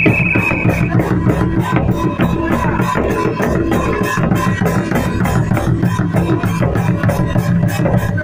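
An Indian folk instrument playing a fast, even rhythm of plucked strokes over a steady low drone.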